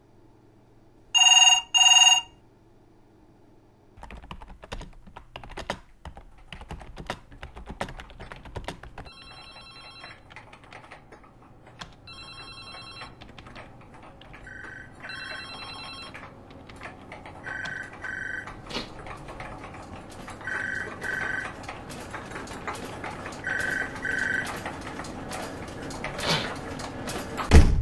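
Office telephones ringing over fast typing on a computer keyboard. A single double ring sounds near the start; from about 4 s in, the keyboard clatters continuously while several phones with different ring tones repeat their double rings, the din growing steadily louder. It ends in a heavy thump, the loudest sound of all.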